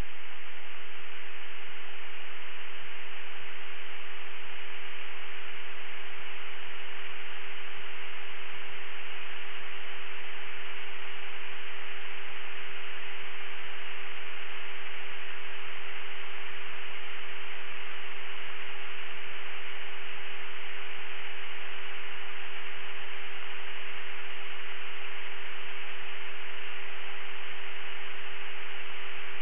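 Steady radio static hiss with a constant hum tone underneath, unchanging throughout: an open radio channel with no transmission.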